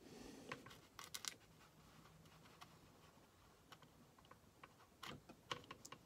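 Near silence with faint, light clicks and taps as a watercolour brush works on paper: a small cluster about a second in and another near the end.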